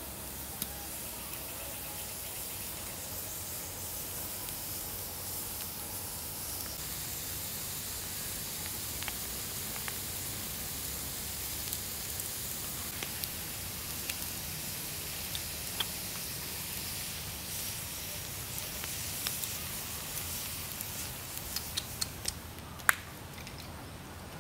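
Snails roasting on skewers in a wood fire's embers: a steady hiss with scattered sharp pops and crackles, more of them and louder near the end.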